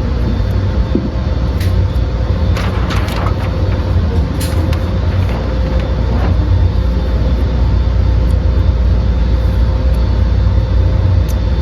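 Steady low mechanical rumble with a faint steady hum over it, a few light clicks about three seconds in, and a single sharp bang right at the end.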